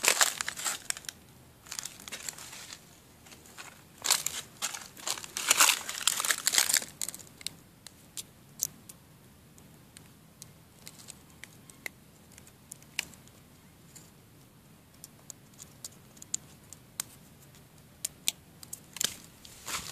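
Scratchy crinkling and rustling that comes and goes in bursts, strongest about four to seven seconds in. Between the bursts there are quiet stretches with scattered sharp clicks, and a few more bursts come near the end.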